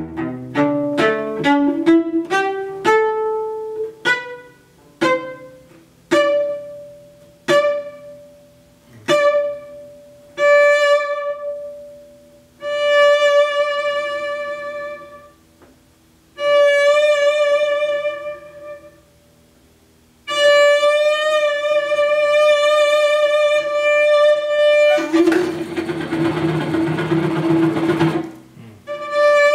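Solo cello playing: a quick rising run of short, ringing notes, then a single high note repeated at ever longer intervals, then long held notes with vibrato. Near the end comes a rough, scratchy noisy stretch for about three seconds before the high note returns.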